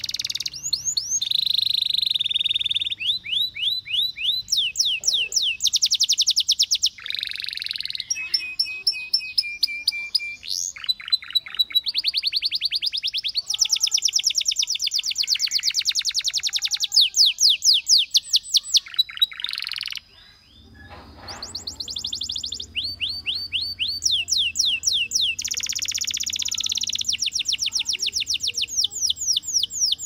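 Canary singing a long song of rapid, high-pitched trills. Each run of quickly repeated notes lasts a second or two before switching to another note type, with one brief pause about two-thirds of the way through.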